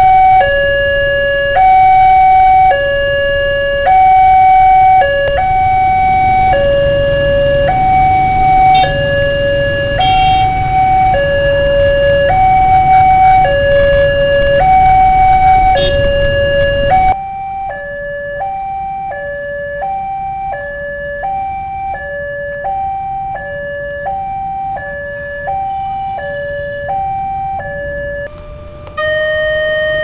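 Indonesian railway level-crossing warning bell: an electronic two-tone alarm alternating steadily between a lower and a higher note, over the rumble of waiting motorcycle traffic. About halfway through it gives way to another crossing's alarm, which alternates faster with little traffic behind it.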